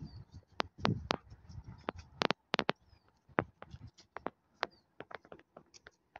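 Irregular sharp clicks and crackles of twigs and dry brush being stepped through, with a few short, high, falling bird chirps.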